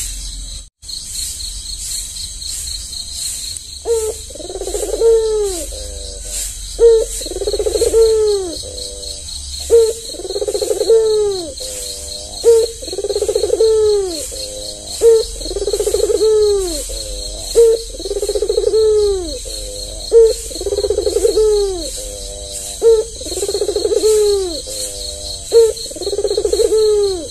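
Albino Barbary dove (puter) cooing over and over: a short note, then a longer rolling coo, about every two and a half seconds. Under it runs a steady, fast-pulsing high chirring of insects such as crickets.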